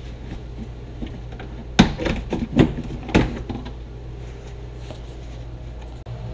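A Toyota Highlander's plastic underbody panel knocking and clattering as it is worked loose from its fasteners. There are three sharp knocks close together between about two and three seconds in, over a steady low hum.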